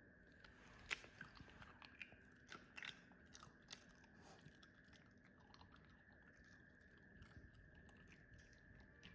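Dog chewing crisp home-made dried chicken breast chips: faint, irregular crunches and clicks, busiest over the first four seconds and then thinning out.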